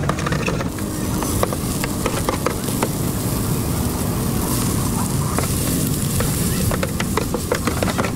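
Noodles and greens sizzling on a flat steel griddle, with scattered clicks and scrapes of a metal spatula against the pan, over a steady background of street noise.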